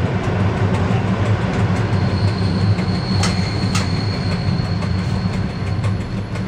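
Electric commuter train heard from its cab, rolling slowly along a station platform: a steady low rumble and hum of the running gear and motors. About two seconds in a thin, high, steady squeal sets in, with a couple of sharp clicks.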